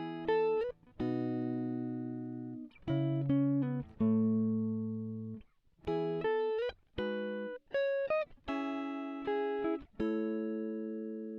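Background music: a plucked guitar playing a slow phrase of single notes and chords, each struck note ringing out and fading before the next, with short breaks between phrases.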